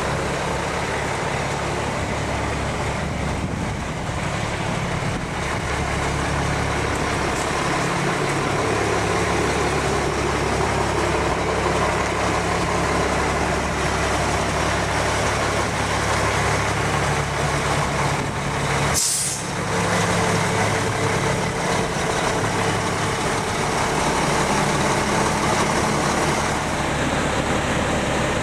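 Diesel truck engine idling steadily, the 2004 Mack Granite's Mack AI-350 engine, with a short sharp hiss about two-thirds of the way through.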